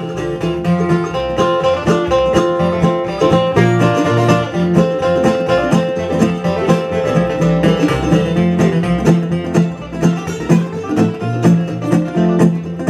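Bluegrass band playing an instrumental break: mandolin and acoustic guitars picking quick notes over a steady upright bass.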